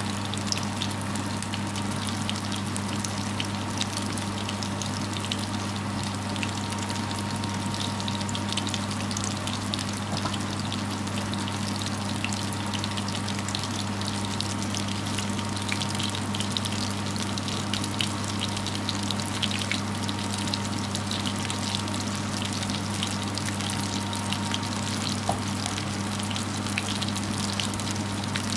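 Oil sizzling around minced-meat patties (keema bora) shallow-frying in a pan, with a dense, steady crackle. A steady low hum runs underneath.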